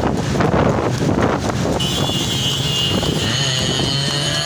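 Several motorcycle engines running at road speed, with wind buffeting the microphone. A steady high-pitched tone joins about two seconds in and holds.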